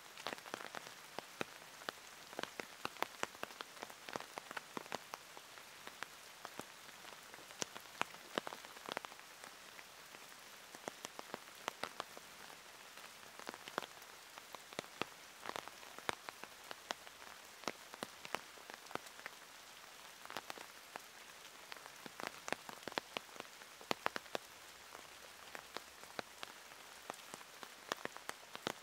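Steady rain with a soft hiss, and many individual drops striking close by as sharp, irregular ticks.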